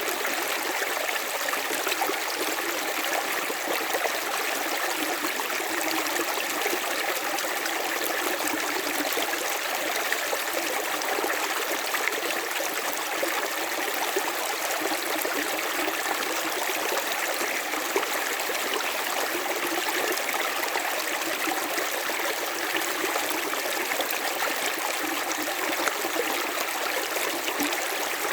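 River water running over stones: a steady, even rush with fine splashing and trickling, unchanging throughout.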